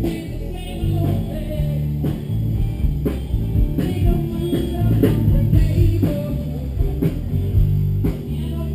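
Rock and roll music with electric guitar, a bass line and drums keeping a steady beat.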